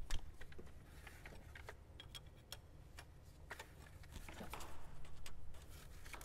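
Scattered light metallic clicks and taps of a wrench and gloved hands working the fuel line fittings on a high-pressure fuel pump, with a soft rustle about four to five seconds in.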